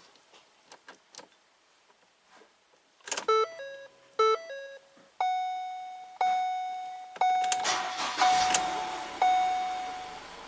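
Ford Transit Connect dashboard warning chimes: two short multi-note chime phrases, then a single chime tone repeating about once a second, five times. About three-quarters of the way through, the 1.6-litre EcoBoost four-cylinder cranks and starts, and it keeps running under the last chimes.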